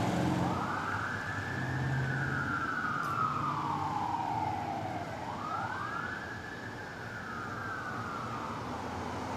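Fire engine siren on a slow wail, rising and then falling away twice, over the sound of passing traffic: an engine company running with lights and siren to an emergency call.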